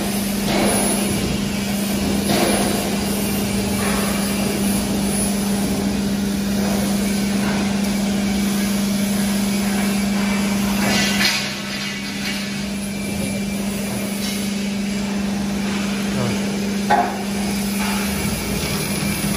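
Steady hum of the plate rolling machine's hydraulic pump unit running, its pump switched on, over workshop noise with a few scattered knocks.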